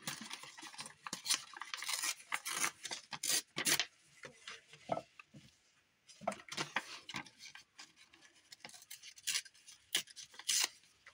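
Paper being handled by hand: rustling, crinkling and tearing in irregular crackly bursts, with a lull about halfway through.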